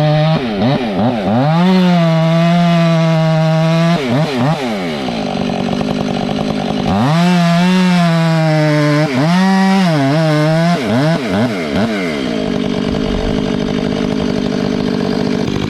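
Chainsaw cutting into a tree trunk at full throttle. Its pitch sags under load and recovers, and the throttle is let off and reopened several times. About twelve seconds in it drops to a low idle.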